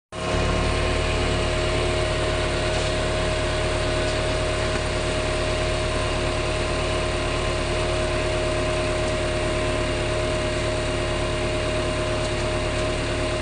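An engine running steadily at idle: a constant low drone with a steady whining tone over it, unchanging throughout.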